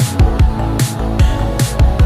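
Electronic background music with a steady beat: a deep kick drum and a sharp clap-like hit about every 0.8 seconds over sustained synth notes.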